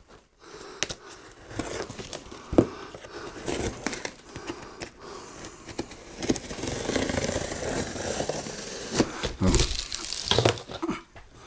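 A large cardboard shipping box being opened: packing tape along the lid seam being cut and pulled, then the cardboard flaps folded back. Irregular scraping, rustling and crinkling, with a few sharp knocks.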